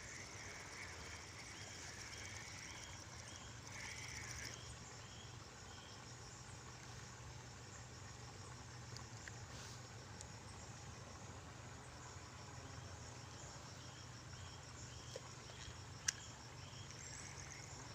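Insects chirping in a fast pulsing rhythm over a low steady hum, the chirping louder in the first four seconds or so and picking up again near the end. One sharp click about sixteen seconds in.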